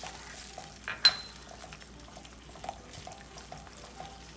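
Sweet-and-sour sauce bubbling in a hot wok, with small irregular pops and sputters as it is stirred with a silicone spatula, and one sharp clink about a second in.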